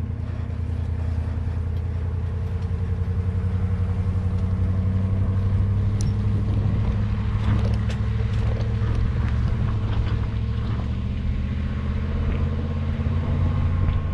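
Pickup truck engine pulling a boat on its trailer, a steady low drone that rises a little as it climbs. Light rattles and knocks come partway through.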